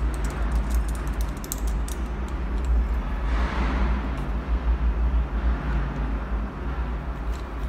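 Light clicks and rubbing of a small chrome three-way angle valve and its fittings being turned and handled, with plastic tubing rustling briefly midway, over a steady low rumble.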